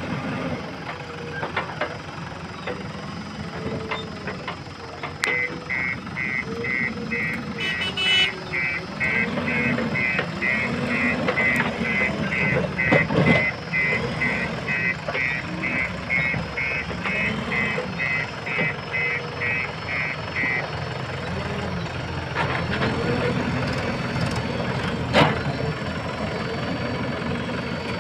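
Diesel engine of a JCB 3DX backhoe loader running and revving up and down again and again as it manoeuvres, with its reversing alarm beeping about twice a second for some fifteen seconds in the middle.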